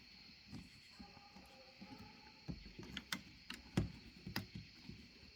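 Scattered faint clicks and taps from hands working on wiring and tools, about half a dozen short knocks spread unevenly over a few seconds.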